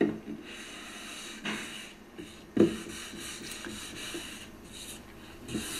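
Hand sanding block loaded with fine #400 Granat sandpaper rubbing back and forth over a curly shedua hardwood drawer front: a scratchy hiss in repeated strokes, with a louder scuff at the start and another about two and a half seconds in.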